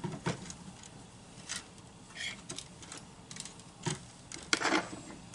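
A few scattered light clicks and taps of hand tools, solder and wire being handled on a workbench during soldering, with a louder cluster of taps near the end.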